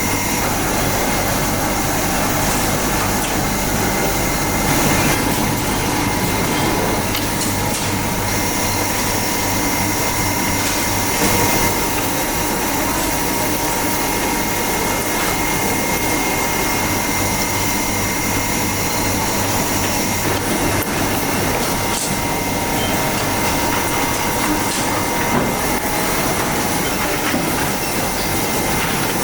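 Steady factory-floor machinery noise: a constant mechanical hum and hiss with faint high steady whines running through it.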